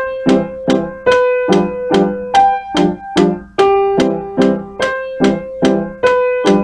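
Piano playing the primo part of a duet ballade at a slow, even practice tempo of 144 beats a minute: regular strikes about two and a half a second, with repeated chords beneath longer held melody notes.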